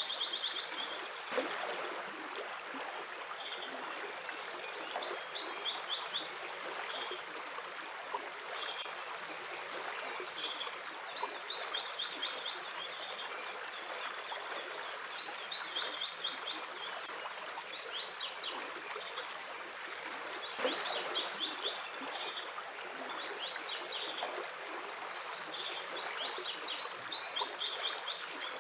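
A running stream with songbirds singing over it: short quick trills of high notes repeat every few seconds above the steady sound of the water.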